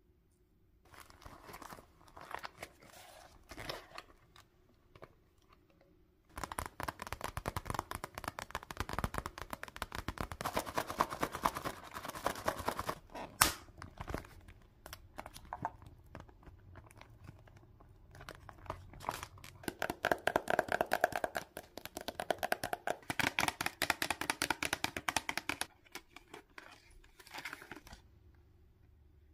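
Plastic packaging crinkling and rustling as it is handled, in several bouts with short pauses between them. A single sharp click about halfway through is the loudest sound.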